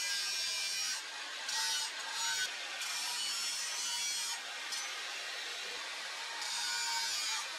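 Angle grinder's abrasive disc grinding the edge of a steel blade, a steady harsh grinding hiss whose high part drops away briefly several times as the pressure on the disc changes.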